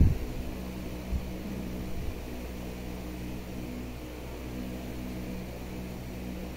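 A steady low mechanical hum with a faint hiss over it, with a soft bump about a second in and another near two seconds.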